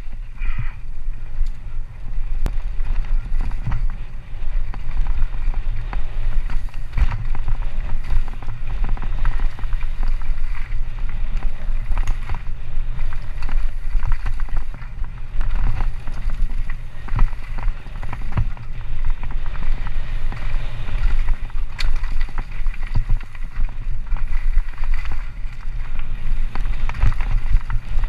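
Orange Alpine 160 full-suspension mountain bike on a fast downhill run: wind buffeting the helmet-mounted microphone in a steady low rumble, over the noise of tyres rolling on gravel and dirt, with frequent irregular knocks and rattles from the bike over rough ground.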